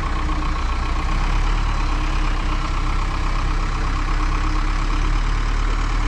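Engine of a rough-terrain block forklift idling steadily, a heavy low rumble with no change in speed.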